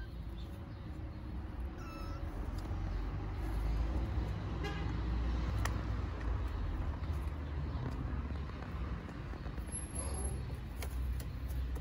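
Stray kittens meowing, a few short calls, over a steady low rumble of street traffic.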